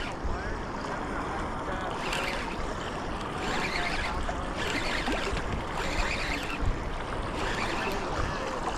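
Wind buffeting the microphone over the steady wash of sea waves, with brighter surges of surf every second or so.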